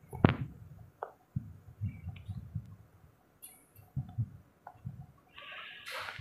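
Handling noises of a blood donation set's plastic tubing and fittings: a sharp click just after the start, scattered soft knocks, and a brief rustling hiss near the end.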